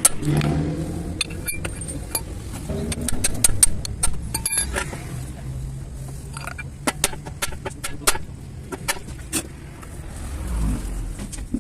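Scattered sharp metallic clicks and clinks of hand tools and car parts being handled, over a low steady hum.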